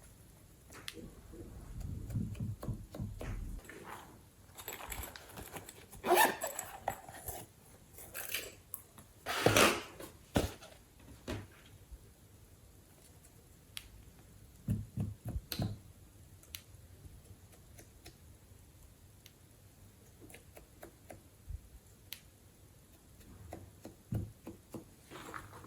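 Hands squishing and stretching glossy slime: scattered sticky clicks and pops, with louder squelches about six and nine and a half seconds in.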